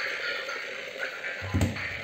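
Oball toy ball playing its electronic tune, and about one and a half seconds in its vibration motor starts a low pulsing buzz as it shakes the ball on the table.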